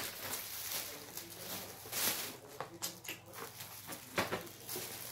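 Thin plastic carrier bag rustling and crinkling as a hand rummages through it, with sharper crackles about two and four seconds in.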